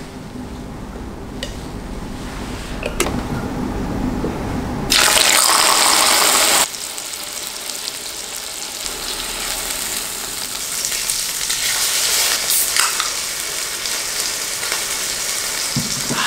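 Beef steak sizzling in oil on an electric grill pan. After a few tong clicks there is a sudden loud burst of sizzling about five seconds in that lasts a second and a half, then a steady sizzle that slowly grows louder.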